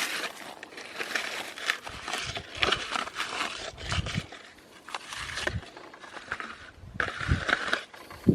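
Irregular crinkling and rustling of plastic trash being handled, with a few low gusts of wind buffeting the microphone.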